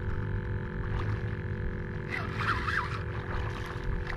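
Wind rumbling on the microphone while a hooked redfish is played on a bent rod, with a brief raspy, warbling burst about two seconds in.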